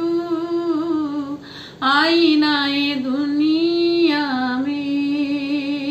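A woman singing a naat, drawing out long held notes with wavering, ornamented turns, broken by a short pause about a second and a half in.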